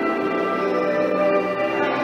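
Music playing, with several held tones sounding together.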